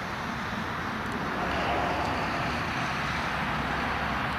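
Steady mechanical noise from an Airbus A320 being towed by an aircraft tug, swelling slightly about a second and a half in.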